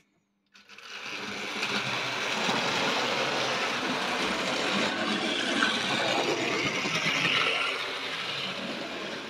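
Tri-ang model electric locomotive running along the track: a steady whirring rattle of its motor and wheels on the metal rails. It starts suddenly about half a second in and eases off slightly near the end.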